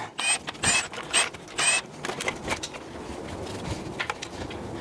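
Cordless ratchet running in about four short bursts, half a second apart, on bolts at the front of a V8 engine, followed by quieter clicks and taps of tools on metal.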